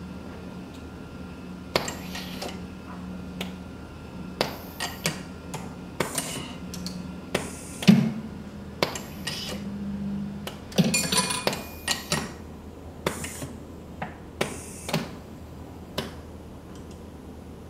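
Pneumatic distribution station of a training production line working through a cycle: repeated sharp clacks and knocks of air cylinders and valves pushing a workpiece out of the stacking magazine, with short rushes of air and a low hum that comes and goes.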